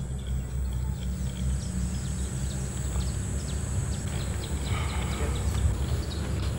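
Outdoor ambience: a steady low rumble with faint, short chirps scattered over it.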